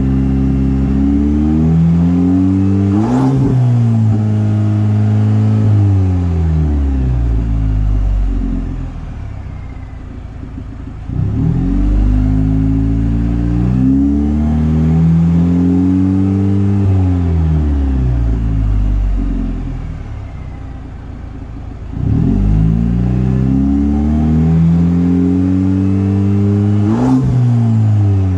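2022 Chevrolet Silverado's 2.7-litre turbo four-cylinder exhaust, through a Flowmaster 40-Series muffler with the resonator removed and dual outlets, being revved. The engine winds down to idle, then is revved twice more, each time climbing quickly and falling slowly back. A sharp pop is heard about three seconds in and again near the end.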